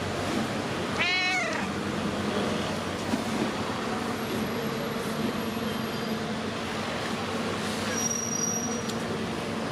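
A cat meows once, a short call rising and falling in pitch about a second in, over a steady background hum.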